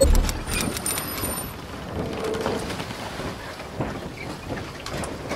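Intro sound effect: a low boom at the start, then a steady rushing noise like rain or wind with scattered faint clicks.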